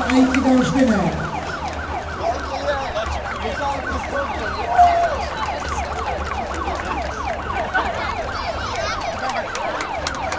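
Emergency vehicle siren on a fast yelp, its pitch sweeping up and down several times a second, over a steady low hum.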